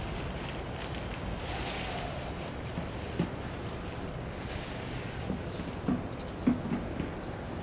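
Cat eating dry kibble from a plastic tray: a few short crunches and clicks, most of them in the second half, over a steady background of outdoor city noise.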